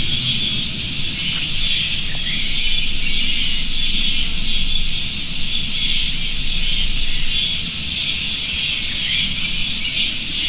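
Dense, continuous high-pitched chirping of many small birds at once, blending into a steady chorus.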